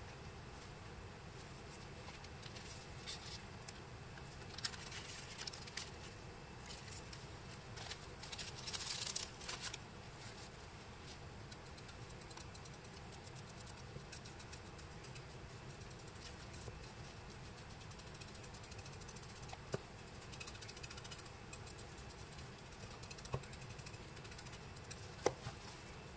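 Faint brush and handling noise as gold leaf is brushed down onto a plastic plaque: soft scratching and rustling, busiest about a third of the way in, with a few light clicks and taps over a low steady hum.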